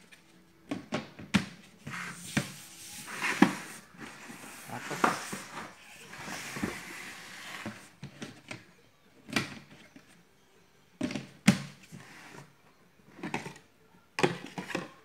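Hard plastic lid of a rice dispenser being handled, fitted onto the bin's rim and pressed shut: a run of irregular plastic clicks and knocks with some scraping, the sharpest knocks a little after three seconds and about eleven and a half seconds in.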